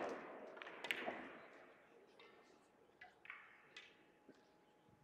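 Sharp clacks of billiard balls striking each other, a loud one about a second in and several fainter ones later, each ringing out briefly in the hall's echo.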